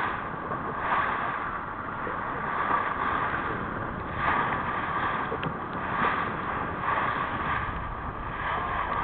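Wind buffeting the microphone over water rushing along the hull of a moving boat at sea, swelling and easing every second or two.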